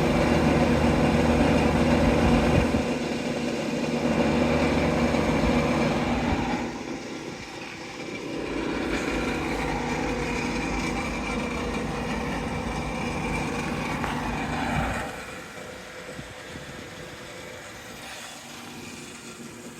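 Ammco 4000 brake lathe running: a steady hum of the electric motor and gear drive, with the slow automatic feed engaged. The sound dips briefly around seven seconds in, then drops sharply to a much quieter level about fifteen seconds in.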